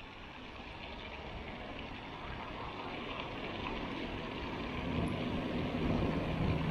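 A motor vehicle approaching, its engine noise growing steadily louder, with a low steady hum coming in about five seconds in.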